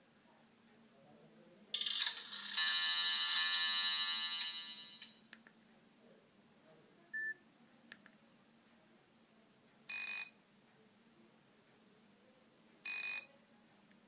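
Nokia 6120 classic's built-in alert tones previewing through its loudspeaker as the list is scrolled. A bright electronic alarm tone sounds for about three seconds and fades out, then a single short beep, then two identical short buzzer tones about three seconds apart.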